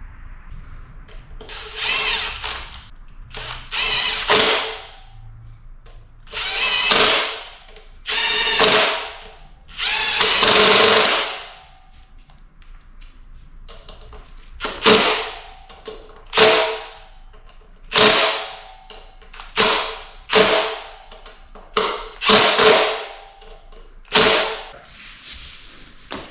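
Handheld power tool spinning in repeated runs, about five of one to two seconds each, then a quicker series of about eight short bursts.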